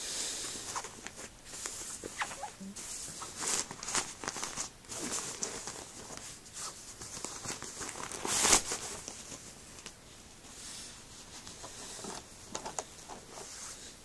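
Rustling and scuffing of a velvet bag being handled and opened as a mechanical keyboard is taken out of it, with one louder scuff about eight and a half seconds in.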